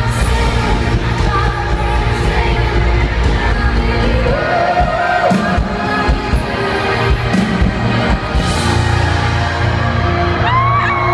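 Live pop band with heavy bass and a woman singing into a microphone. Near the end, people in the audience whoop and shout.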